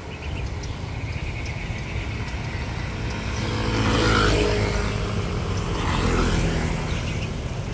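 Two motor scooters passing close by one after the other, their small engines rising and falling as each goes past, about four and six seconds in, over a steady low rumble.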